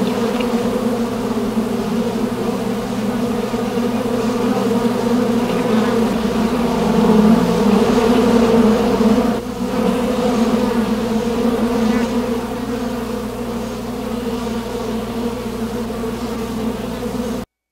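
A steady, dense drone with a low hum under it, layered in several pitched bands, cutting off suddenly near the end.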